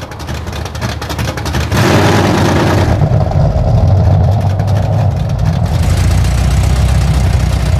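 An engine running and revving, building up over the first two seconds into a loud, steady deep rumble with a fast clicking pulse.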